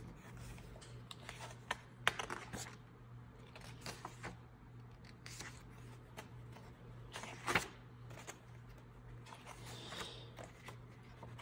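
Stiff cardstock map pages of a leather-bound Bible being turned by hand: scattered soft rustles and page flicks, with one louder page snap about seven and a half seconds in.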